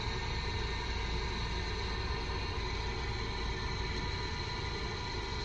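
Steady low rumble and hiss of a car running, heard from inside the cabin.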